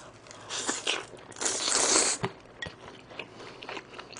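Close-miked eating of spicy instant stir-fried noodles wrapped in salted laver: a short slurp, then a longer one about a second and a half in, followed by soft chewing with small mouth clicks.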